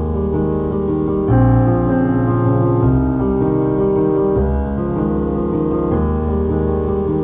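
Background piano music: soft held chords that change about every second and a half.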